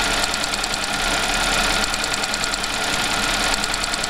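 Audi engine idling with its fuel vapour purge valve clacking in a fast, even rhythm, loud against the engine. The valve is cycling as it purges fuel vapour, a very common noise on Audi and VW engines that the makers consider normal.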